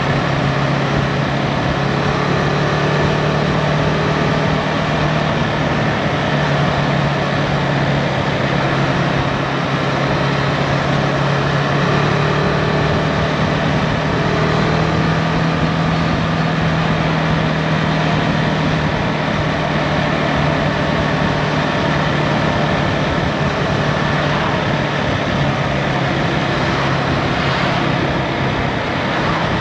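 Husqvarna Svartpilen 401's single-cylinder engine running at a steady cruise, with a constant rush of wind and road noise.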